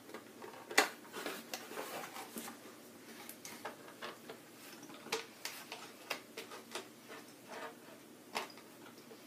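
Irregular sharp clicks and snips of small wire clippers cutting twist ties on a cardboard box, with light rustling of the packaging between them; the loudest click comes about a second in.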